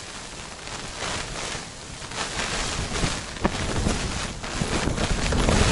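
Strong gusting wind buffeting the walls of a small fabric ice-fishing tent, with rain and wet snow pelting the fabric; the gusts grow louder toward the end.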